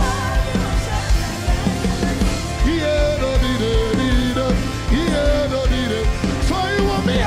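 Live gospel worship band playing with a steady drum beat, with voices singing over it.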